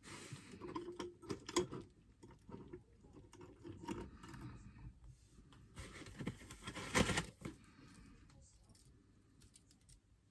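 Packaging being handled as a set of toy potion scales is worked out of its box: irregular rustling, scraping and small clicks and clinks, the loudest burst of handling about seven seconds in.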